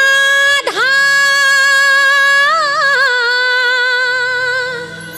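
A woman singing a long, wordless held note that opens a devotional bhajan. Her pitch dips and swings back up just before a second in, wavers in an ornament around the middle, then the note fades near the end.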